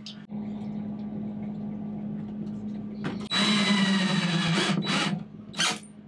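Cordless drill run into a 2x4 wooden support for about two seconds, a little past the middle, its pitch dropping toward the end, followed by a short knock. Before that a steady low hum.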